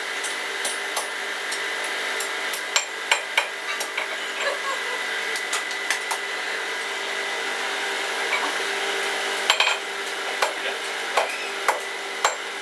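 Blacksmith's hammer striking metal on an anvil: scattered, irregular clinks and knocks, a short cluster of them near the three-quarter mark. A steady hum runs underneath throughout.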